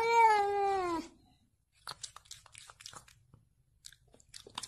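A cat meowing once: a single loud call about a second long that rises and then falls in pitch, followed by a few faint ticks.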